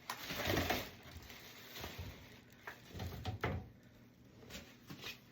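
Faint handling of packaging in a drum box: soft rustling of packing material and a few light knocks and bumps.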